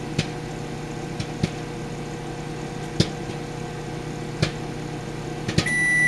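GE microwave oven running with a steady hum while popcorn pops sparsely inside, a handful of single pops a second or more apart: the popping has slowed, the sign that the batch is nearly done. Just before the end the cycle finishes and the microwave's end beep sounds.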